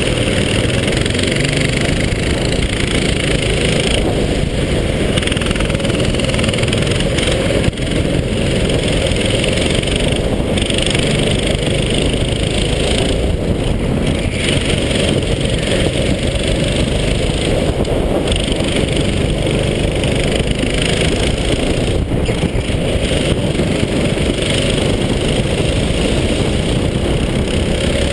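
Go-kart engine running at racing speed under a heavy rush of wind noise on a helmet-mounted camera, with brief dips every few seconds as the throttle is eased for corners.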